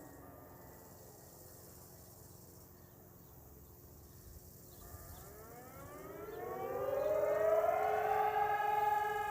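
Civil defense siren sounding for a test: its falling tone dies away at the start, and after a quieter pause of about five seconds it winds up again over about three seconds. It settles at a steady, louder wail of several tones together near the end.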